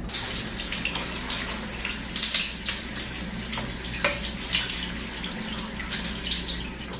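Water spraying from a handheld shower head onto a chrome shower mixer and tiled wall, rinsing off the lemon used to clean it. The spray starts suddenly and splashes unevenly.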